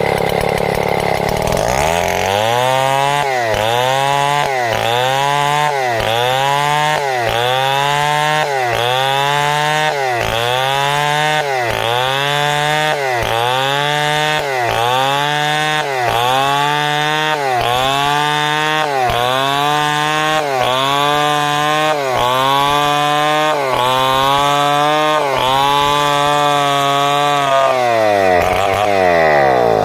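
Two-stroke chainsaw ripping timber into planks. The engine speed drops and recovers in a regular rhythm about once a second as the chain loads in the cut, with the revs falling at the start and rising again near the end.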